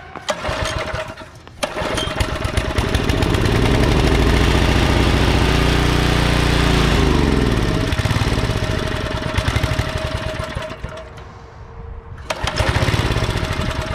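Troybilt Pony tiller's 5 hp Briggs & Stratton single-cylinder engine catching and running briefly on fuel poured into the carburetor, then slowing and faltering, and picking up again near the end. The stumbling is a sign that it isn't getting fuel from the tank, which the owner puts down to a dirty carburetor.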